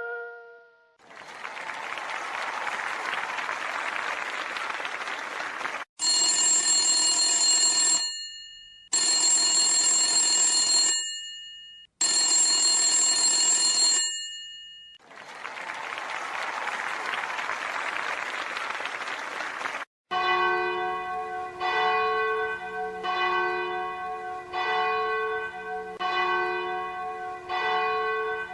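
Sounds from a sound-guessing quiz in three parts. First a steady hiss. Then three ringing bell-like strokes, each dying away over about two seconds. Then the hiss again, followed by a repeating pitched ring pattern roughly once a second.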